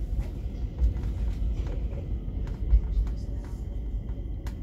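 Stockholm metro train running on surface track, heard from inside the carriage: a steady low rumble with occasional short clicks and knocks from the wheels on the rails.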